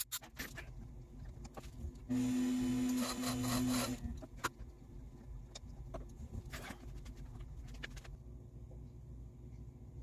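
Unique Products cue lathe boring into a hickory cue core: a steady motor hum with cutting noise for about two seconds, a couple of seconds in. Light clicks and knocks of tool handling come before and after.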